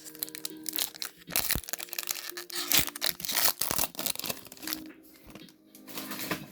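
A Pokémon TCG booster pack's foil wrapper being torn open and crinkled by hand: a dense run of irregular crackling rustles, busiest in the middle and thinning toward the end.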